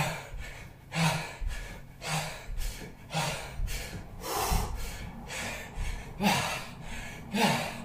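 A man breathing hard while doing squats, with a sharp, forceful exhale about once a second in time with the movement.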